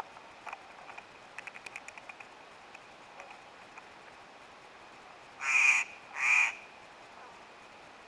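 Steller's jay giving two loud, harsh calls, each about half a second long, a little after five seconds in. They follow a short run of faint ticks about a second and a half in.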